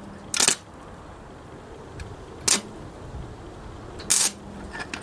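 Three short, sharp clatters about two seconds apart as debris is cleared off the lawn mower's metal parts with a tool.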